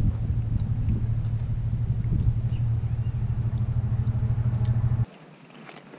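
Loud low rumble that cuts off abruptly about five seconds in, leaving only faint clicks.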